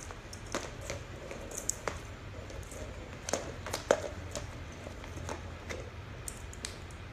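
Irregular clicks and taps of a puppy playing with a rolling ball toy on a hardwood floor, the loudest a sharp knock about four seconds in.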